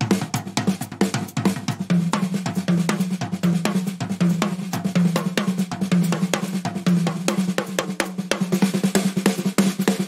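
Live instrumental band music led by a busily played drum kit, with snare, bass drum and cymbals hitting densely, over a low bass note that pulses steadily from about two seconds in.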